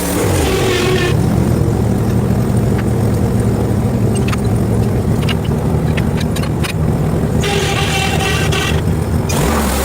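Engine running steadily, its pitch dropping about half a second in, with a scatter of sharp clicks and ticks in the middle.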